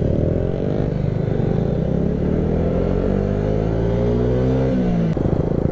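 Motorcycle engine pulling away under acceleration, its pitch rising steadily for about four and a half seconds, then dropping sharply near the end.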